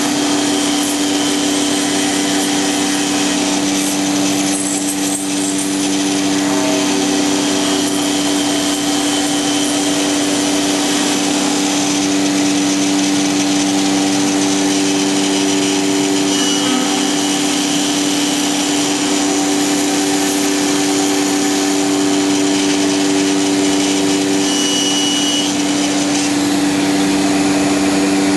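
Anderson CNC router spindle driving a horizontal aggregate head, cutting sideways into the edge of a wooden door. The machine gives a steady whine made of several fixed tones over the hiss of the cut.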